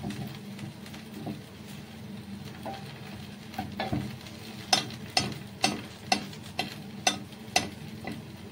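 Food frying in a pan while it is stirred, over a steady low hum. About halfway in comes a run of about seven sharp taps, roughly two a second.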